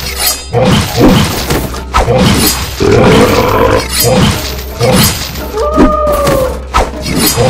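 Cartoon fight sound effects: a run of loud hits and crashes, one every half second to a second, over a steady music bed. Near the end a pitched sound falls in pitch.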